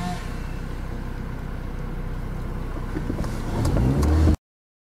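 Car engine idling with a steady low hum, then revving up, rising in pitch, about three and a half seconds in; the sound cuts off suddenly near the end.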